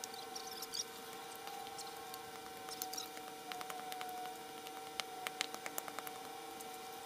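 Shovels digging into sod and dirt: faint scrapes and sharp clicks of blades striking the ground, with a quick run of clicks about five to six seconds in, over a steady low hum.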